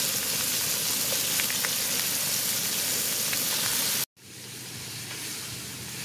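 Slices of meat sizzling as they fry in melted butter in a nonstick pan, a steady hiss with a few faint ticks. About four seconds in it breaks off for an instant and comes back quieter.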